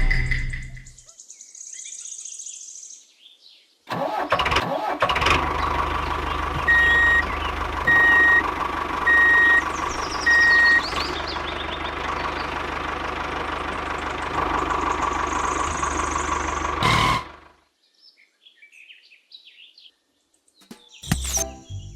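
A small engine running steadily for about thirteen seconds, with four short high beeps about a second apart near its start, then cutting off abruptly.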